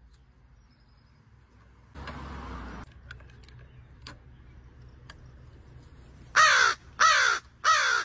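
Crow cawing three times in quick succession near the end, each caw falling in pitch. A brief rush of noise comes about two seconds in.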